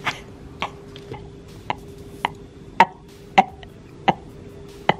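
A series of light, sharp clicks, about two a second and fairly even, over a faint steady hum.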